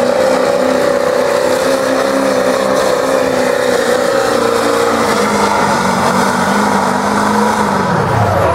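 A diesel GMC Sierra pickup's engine runs hard under heavy load as it drags a pulling sled, with black smoke from its bed stack. Its note holds steady and shifts slightly partway through. Near the end the revs drop sharply as the pull ends.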